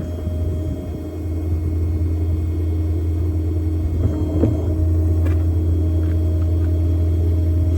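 Steady low rumble of a running engine, with a few faint clicks about four to five seconds in.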